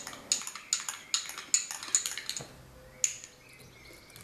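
Spoons clinking against small ceramic cups: a quick run of light clinks, about a dozen over three seconds, the last one standing a little apart.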